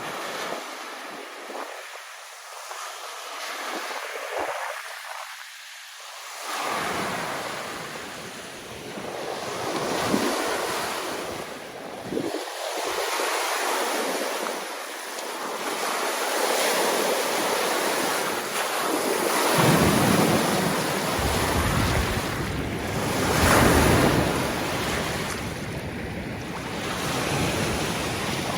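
Lake Michigan waves washing onto the beach in swells that rise and fall, with wind on the microphone; the low wind rumble grows heavier about two-thirds of the way through.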